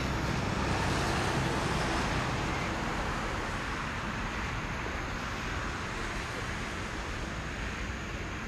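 Boeing 777-300's twin jet engines at takeoff thrust, a steady distant roar as the airliner rolls down the runway, swelling slightly about a second in.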